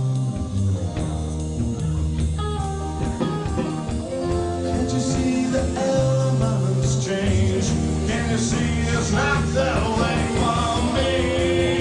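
A band playing a rock song with guitar and sustained bass notes, in a passage between sung lines.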